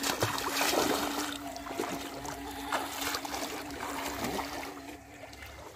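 Shallow water splashing and sloshing around a person's legs and feet as they wade through a canal, busiest in the first second or so and easing off after. A steady low hum runs underneath.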